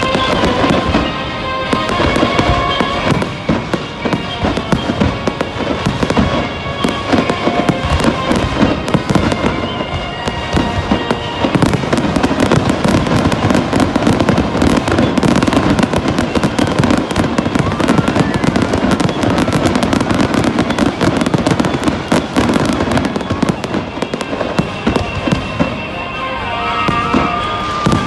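Fireworks display: a continuous barrage of shell bursts and firecracker-like crackling, at its densest as a rapid steady crackle through the middle stretch.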